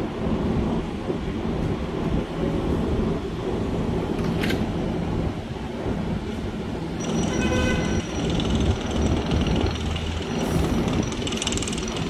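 R188 electric subway train rumbling at the platform and then pulling away. Its propulsion whine of several steady tones sets in about seven seconds in as it starts to move.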